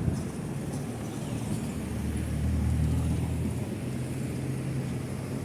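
Busy city road traffic: steady engine and tyre noise, with one vehicle's low engine hum swelling as it passes about two seconds in.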